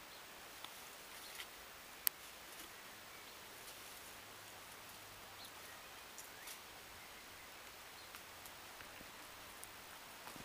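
Faint rustling and small scattered clicks over a quiet hiss as an Alaskan malamute puppy noses about in shrub leaves on concrete, with one sharp click about two seconds in.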